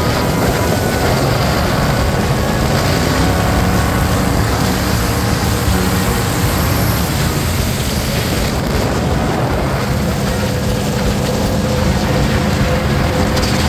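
LS V8 engine of a jet boat running steadily at speed, with the rush of water and wind over the hull.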